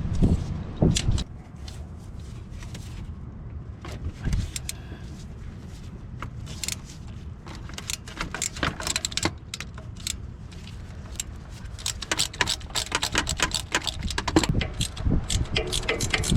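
Hand ratchet clicking as the starter motor's mounting bolts are worked loose, with scattered metal clinks of tools. The clicking comes in short runs at first, then speeds up into a fast continuous ratcheting for the last few seconds.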